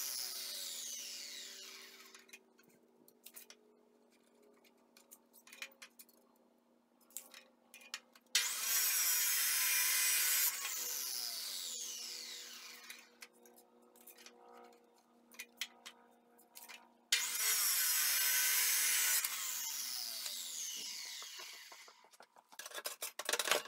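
Abrasive chop saw cutting steel flat bar: the wheel is winding down from a cut at the start, then two cuts of about two seconds each, each followed by the motor winding down with a falling whine. Clicks and knocks of the bar being moved and clamped between cuts.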